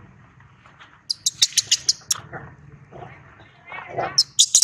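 Baby macaque squeaking: a quick run of about seven short, very high-pitched squeaks, a lower wavering cry near the end, then more high squeaks.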